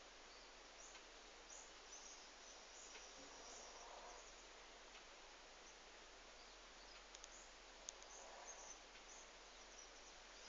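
Near silence with a faint steady hiss, and two soft breaths of a sleeping pet, about four seconds and eight and a half seconds in, with a few faint ticks near the end.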